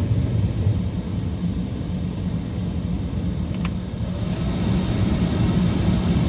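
Ram truck's rebuilt Hemi V8 idling, heard from inside the cab, with a steady low rumble and the cabin heater blowing.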